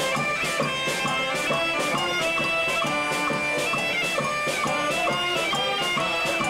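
A live band playing an upbeat tune: a loud reed melody, most likely the saxophone, in held, changing notes over a steady drum beat, with electric guitar.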